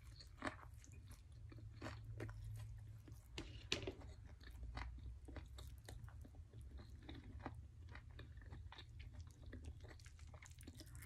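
A person biting into and chewing a pupusa topped with curtido and salsa, faint, as a stream of small mouth clicks with a louder one about three and a half seconds in, over a low steady hum.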